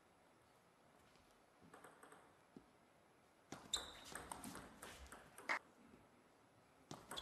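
Near silence for about three and a half seconds, then a table tennis rally: a quick, uneven run of sharp clicks as the ball strikes the bats and the table.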